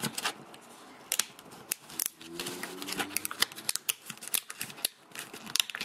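Plastic jacket of a 5.25-inch floppy disk being pulled apart at its seams by hand: irregular crackling clicks and snaps as the bonded edges separate.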